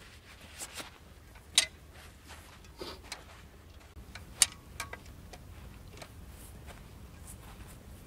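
Camping gear being unpacked and set up by hand: scattered light clicks and knocks, with two sharper clicks about a second and a half in and again about four and a half seconds in.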